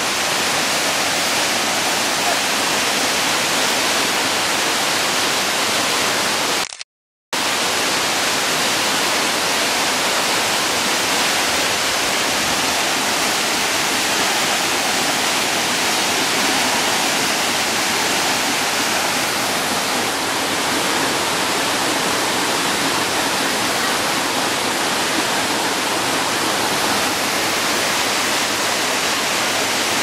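Waterfall and the stream cascading over rocks below it: a loud, steady rush of falling water. The sound cuts out for about half a second around seven seconds in.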